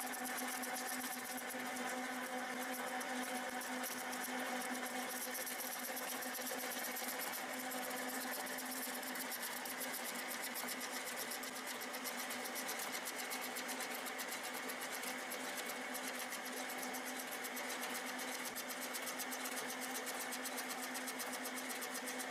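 Centre lathe running steadily, its spindle drive giving a constant hum with a fine rapid rattle, while a knurling tool is pressed against the turning workpiece.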